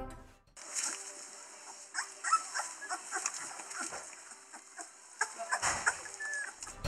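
Three-week-old Curly Coated Retriever puppies feeding and scuffling, with small squeaks and grunts and soft scattered clicks of mouths and paws, over a steady hiss. Background music fades out in the first half second.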